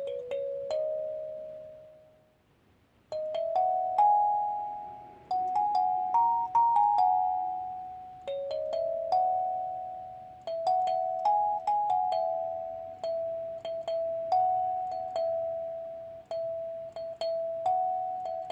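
Gecko kalimba: its metal tines are plucked by the thumbs, playing a slow melody of single ringing notes that each die away. There is a pause of about a second around two seconds in, and then the tune resumes.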